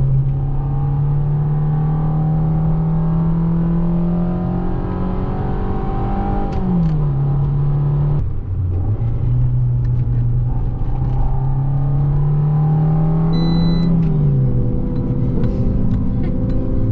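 Fiat 500's 1.4-litre four-cylinder petrol engine heard from inside the cabin while driving. Its pitch climbs slowly as the car pulls and then falls back, about seven seconds in and again near the end.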